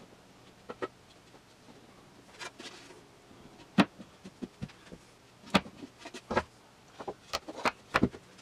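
Plywood box-joint pieces knocking and clacking against each other and the workbench as the sides and top of a box are fitted together, lifted off and laid flat: a dozen or so separate wooden knocks, the loudest a little under four seconds in and several in quick succession near the end.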